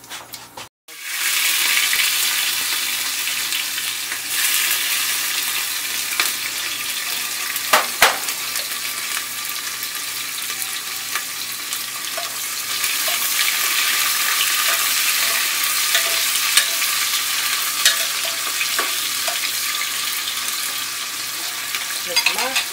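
Sliced onions hitting hot oil and cumin seeds in an aluminium pressure cooker, sizzling loudly from about a second in, then frying steadily while being stirred. A few sharp clicks of the stirring spoon against the pot.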